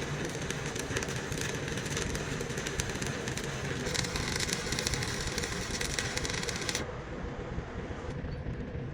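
Steady crackle of arc welding on a truck's broken rear axle housing, which stops abruptly near the end, leaving a low rumble.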